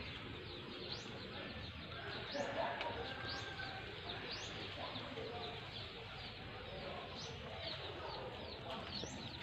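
Small birds chirping over a steady outdoor background: short, high, downward-sliding chirps about once a second.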